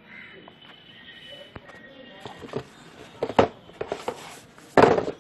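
Handling noise: a run of knocks and rustles from about two seconds in, ending in one loud, longer rustle near the end.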